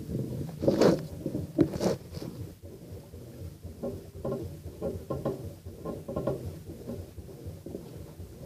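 Brastemp Ative 11 kg washing machine running its wash, water sloshing and churning in the drum in irregular surges, with two louder splashes about one and two seconds in.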